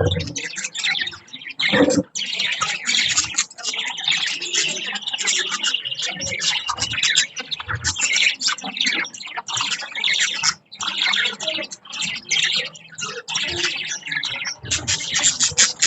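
Budgies chattering and chirping continuously in rapid, overlapping calls, with a short thump about two seconds in.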